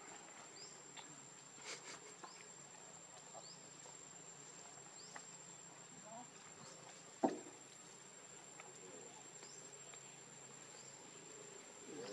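Faint outdoor ambience: a steady high-pitched insect drone, with short rising high chirps about once a second. One sharp knock comes about seven seconds in.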